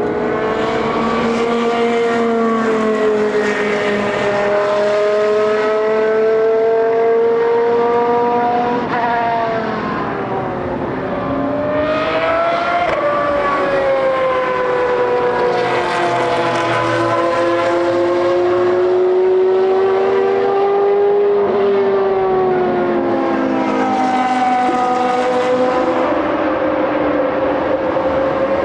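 Historic race cars' engines at high revs, several heard at once, their pitch rising and falling as they change gear and pass by.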